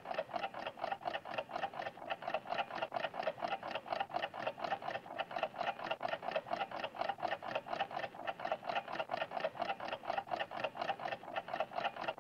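Cartoon sound effect of a clock ticking rapidly and evenly, about four ticks a second.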